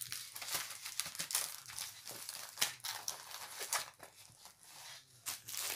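Plastic packaging of a diamond-painting kit crinkling and rustling as it is handled and folded, in irregular crackles. It eases off for about a second shortly before the end, then crinkles again.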